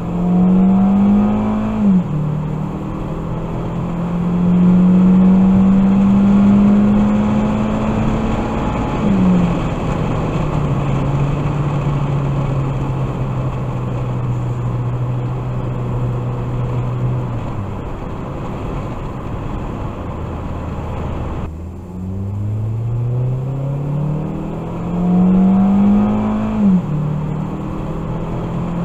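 A 2013 Ford Focus's 2-litre four-cylinder engine pulling through its automatic's gears. The note climbs and falls sharply at an upshift about two seconds in and again about nine seconds in, holds steady, dies away, then climbs through one more upshift near the end, over steady road noise.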